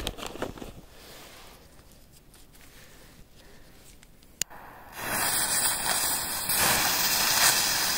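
A sharp click, then from about five seconds in a loud steady hiss: firecracker fuses being lit and sizzling as they burn.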